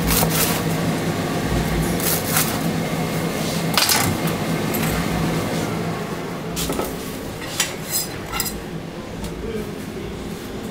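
A large knife chopping through pressed toasted sandwiches onto a plastic cutting board: three sharp knocks about two seconds apart. Lighter clinks and clatter of dishes follow, over a steady low hum.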